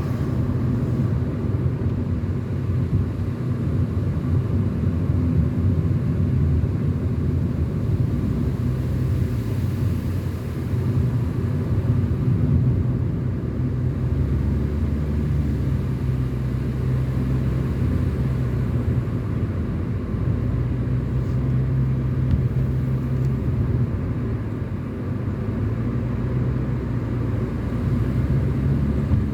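A car driving along a mountain road: steady low engine and tyre rumble.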